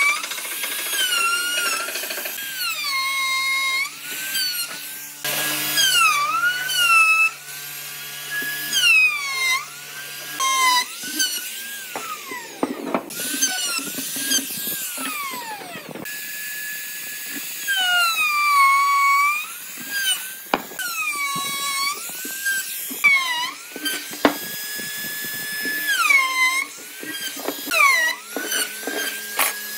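Makita trim router running at high speed, cutting grooves into a wooden block. Its whine drops in pitch each time the bit bites into the wood and climbs back as the cut eases, over and over.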